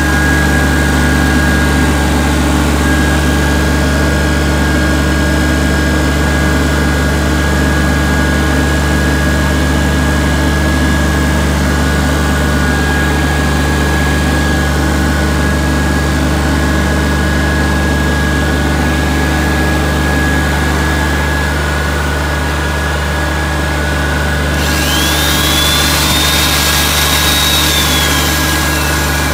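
Yoshida YEG-280 soundproofed diesel welding generator running steadily with a low hum. About 25 seconds in, an electric power tool run from its outlet starts up with a hiss and a high whine, which rises and then falls away near the end.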